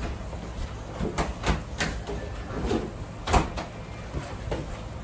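Kitchen clatter: about half a dozen sharp knocks and clacks, with the loudest about three and a half seconds in.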